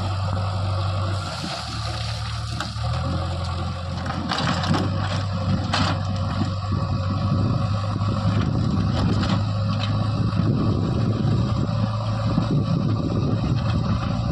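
Heavy diesel engine running steadily, its pitch shifting between about one and three seconds in, with some knocks and scrapes about four to six seconds in.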